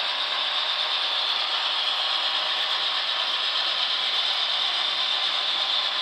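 HO scale model freight train of covered hopper cars rolling along the track: a steady, even rolling noise of small metal wheels running on the rails.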